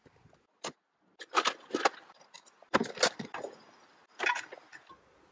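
A run of sharp knocks and clatters in short groups with quiet gaps between them: handling noise from camping gear.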